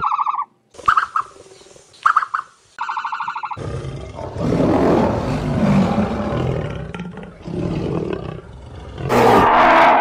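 A few short high-pitched calls, then, from about three and a half seconds in, a lion roaring, a rough sound that rises and falls in loudness several times.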